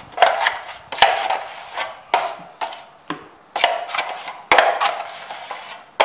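A drywall knife scraping hot-mix joint compound out of a mud pan in a quick series of strokes, about one or two a second. The mud is already starting to set.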